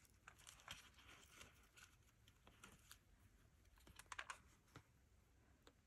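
Faint, scattered clicks and light rustling of small paper pieces being sorted through by hand, with a short flurry of clicks about four seconds in.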